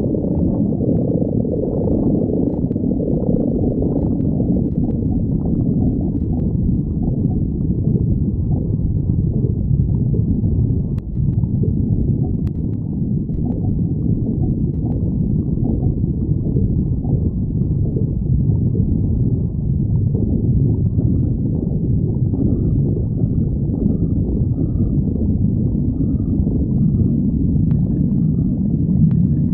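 A person's stomach growling and gurgling in a continuous low rumble that hardly lets up, with a brief dip about eleven seconds in.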